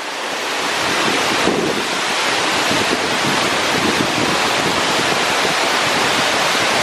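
A waterfall pouring into a pool inside a rock cave: a steady rush of falling water, swelling over the first second and then holding.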